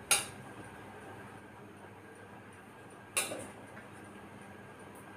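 Two sharp metal clinks about three seconds apart, each ringing briefly: a serving spoon knocking against a stainless steel pot while food is dished onto a steel plate.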